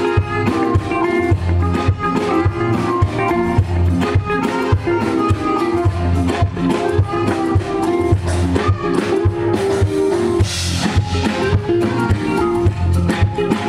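Band playing an instrumental groove through the stage sound system, with drum kit, bass and guitar. A cymbal wash comes in about ten and a half seconds in.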